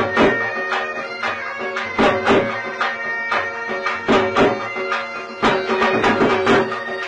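Folk music: loud drum strokes, often in pairs about a second apart, under a wind instrument's steady held notes.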